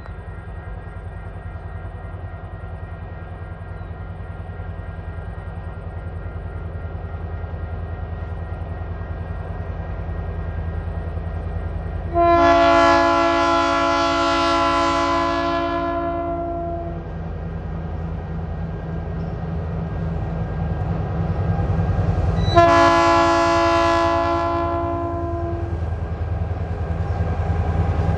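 Diesel locomotives running light approach with a low engine rumble that grows steadily louder. The lead locomotive sounds its multi-note horn twice: a long blast of about four and a half seconds just under halfway through, then a shorter blast of about three seconds later on.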